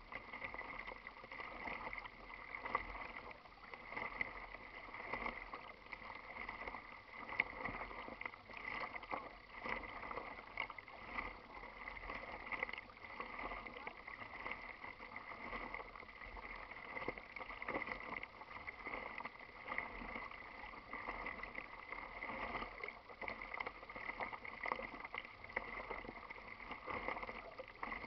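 Water lapping and splashing against the plastic hull of a kayak moving through light chop: a steady wash with many small splashes.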